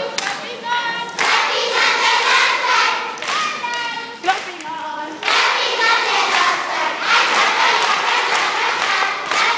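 A group of young children singing together and clapping along.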